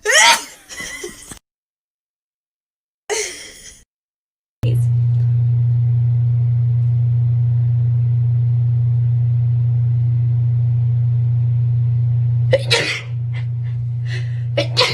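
A person sneezing in short, cut-together clips: a sharp sneeze at the start and another short one about three seconds in, with dead silence between. Then a loud steady low hum sets in, over which come two more short sneezes near the end.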